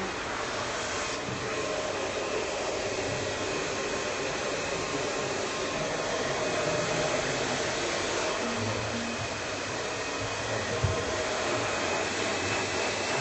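Handheld hair dryer running steadily, blowing air through a person's hair, with a faint steady hum under the rush of air. One short knock sounds near the end.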